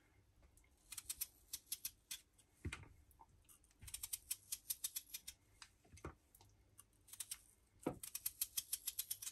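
Small serrated knife paring skin off a raw potato held in the hand: faint, quick scraping cuts several a second, in three short runs with pauses between them.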